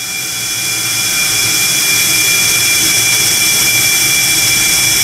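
Conventional oil-free screw compressor running: a loud steady hiss with several high steady whining tones over it, fading in during the first second or two.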